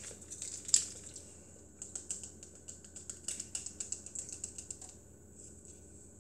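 Small plastic vitamin bottle handled close to the microphone: a sharp click about a second in, then a run of light, quick clicks and rattles for about three seconds as the bottle is worked open, fading out near the end.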